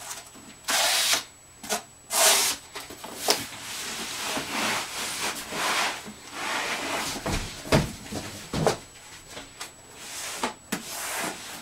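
Cardboard rubbing and scraping as a white inner box is slid out of a cardboard shipping box, in irregular rustling bursts, with one dull thump about two thirds of the way through.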